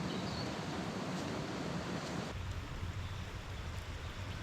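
Steady rush of flowing river water, changing to a deeper rumble a little over two seconds in.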